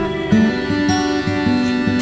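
Instrumental background music with a quick run of notes.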